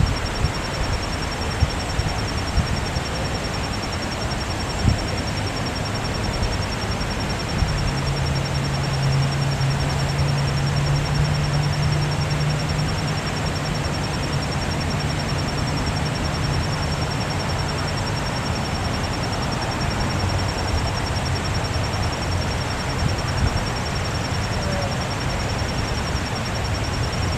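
Waterfall rushing as a steady, even roar of falling water. About eight seconds in, a low steady hum joins underneath.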